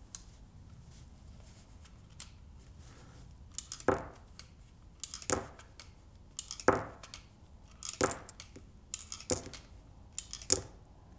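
Colt Single Action Army BB revolver being unloaded by hand: sharp metal clicks as the cylinder is turned and the brass cartridge shells come out one at a time and drop onto the table. There are six main clicks, evenly spaced about a second and a quarter apart, with lighter ticks between them.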